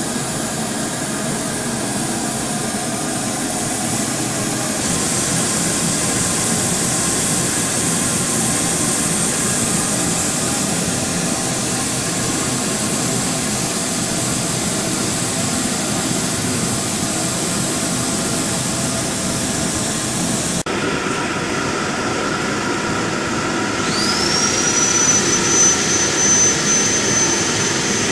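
Steady, loud machinery noise. After a cut about two-thirds of the way through, a high-pitched whine rises quickly near the end and then holds steady, like a motor spinning up.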